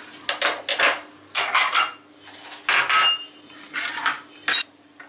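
A metal spoon scrapes and clinks against an aluminium frying pan and ceramic bowls as a thick sauce is spooned out. The sound comes in about five short bursts, some with a brief metallic ring.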